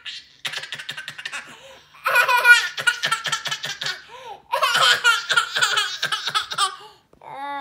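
A toddler girl laughing loudly and deliberately fake, in three long bouts of rapid ha-ha pulses.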